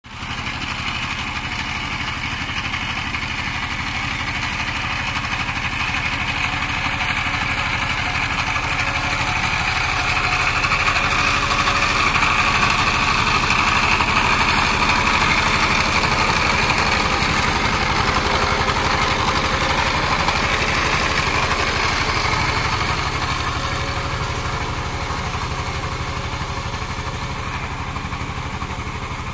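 Two-wheel power tiller's single-cylinder diesel engine running steadily with a fast, even chug while the machine works through deep paddy-field mud. It grows louder through the middle and eases a little near the end.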